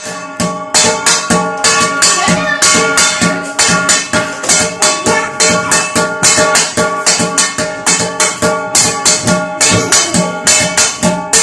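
Metal parat (wide, shallow kneading dish) and other steel kitchen vessels beaten by hand in a quick, steady drumming rhythm, each strike ringing on with a metallic tone.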